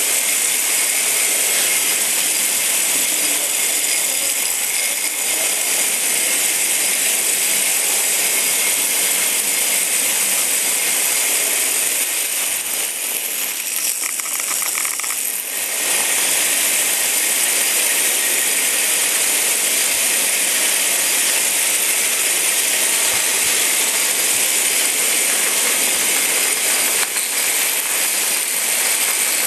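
Several Hexbug Bobble Bots, small vibration-motor toys, buzzing and rattling steadily on a hard floor, easing for a few seconds around the middle.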